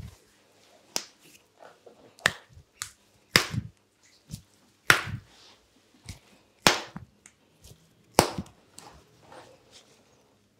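A series of sharp smacks and pops from hands working a person's arm and hand during a massage, about eight to ten at uneven intervals, the loudest four falling from about three seconds in to about eight seconds in.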